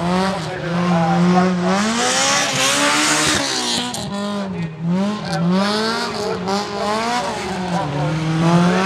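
Honda Civic Type R rally car's four-cylinder engine being driven hard, revving up and easing off again and again as it is thrown round the cones, with some tyre squeal.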